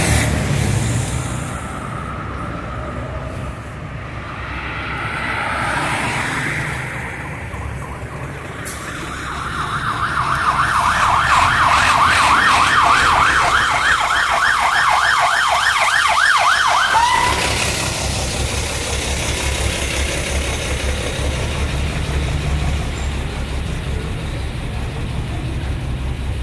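Ambulance siren on its fast yelp, the pitch sweeping up and down several times a second for about seven seconds, then dropping away with a falling tone. Fainter rising and falling siren tones come before it, over low street rumble and microphone handling noise.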